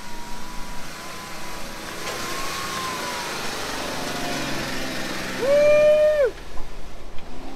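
Jeep engine running with a steady rush of wind and tyre noise. About five and a half seconds in, a loud held tone sounds for just under a second, dropping in pitch as it cuts off.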